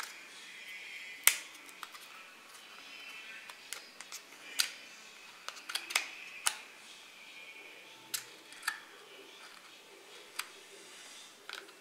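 Handling noise from unpacking an Apple MagSafe charger: scattered sharp clicks and taps of the moulded paper tray and the cable's plastic clips as the coiled cable is worked loose and lifted out, the loudest click just over a second in.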